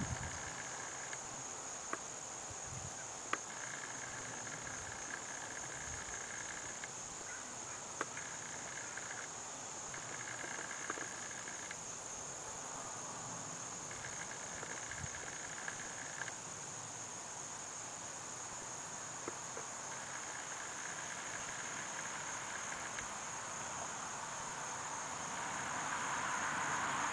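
Insects calling outdoors: a steady high-pitched trill throughout, with a lower buzzing chorus that comes and goes in stretches of a second or two. A broad rush of noise swells near the end.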